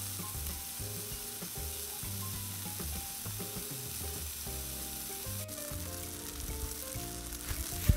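Beef and chicken burger patties sizzling steadily on a hot steel flat-top griddle, with soft background music underneath.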